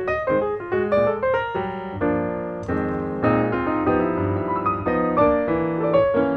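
Background piano music: a light melody of quick struck notes over sustained lower chords.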